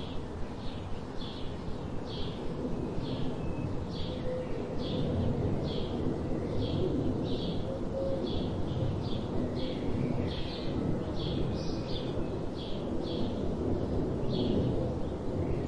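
A bird calling with a short high note repeated about twice a second, over a steady low rumble like wind or running water.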